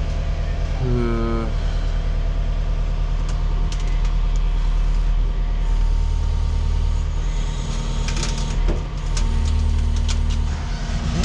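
Kubota SVL75-3 compact track loader's diesel engine running steadily with a low drone, with a few sharp clicks and knocks about eight seconds in.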